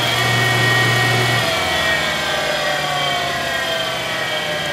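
Deckel SO cutter grinder's wheel motor and spindle running with a steady hum and whine. The hum stops about a second and a half in as the motor is switched off, and the whine then slowly falls in pitch as the wheel coasts down.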